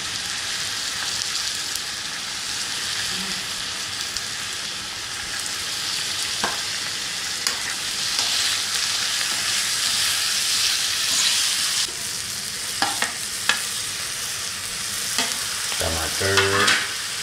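Pork and onions frying in hot oil in a wok, a steady sizzle, while a metal spoon stirs and knocks against the pan a few times, loudest near the end.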